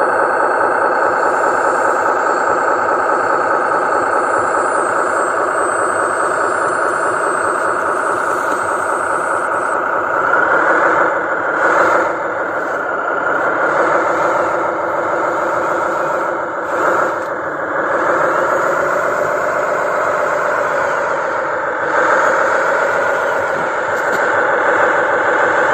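A dump truck's motor running with a steady whining drone, which wavers up and down in pitch from about ten seconds in as the truck drives across the sand.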